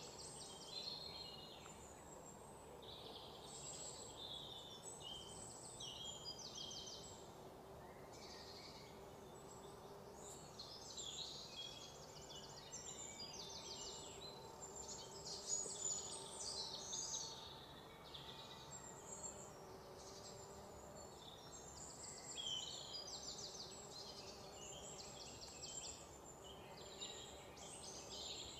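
Small birds chirping and trilling continuously, many high, quick calls overlapping, over a faint steady hum; one brief click a little past halfway.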